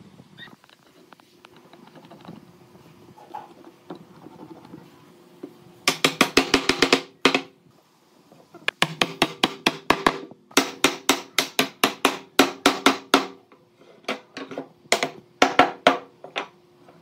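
Runs of rapid, sharp wooden knocks, about ten a second, with a ringing tone carrying between them, starting about six seconds in after a quiet stretch.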